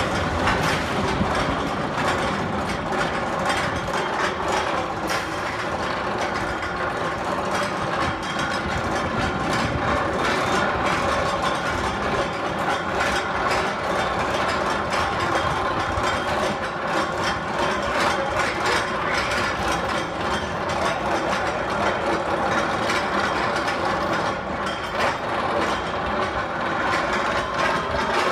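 Drive machinery of a spinning arm thrill ride running steadily: a continuous mechanical whine with fast, irregular clicking over it.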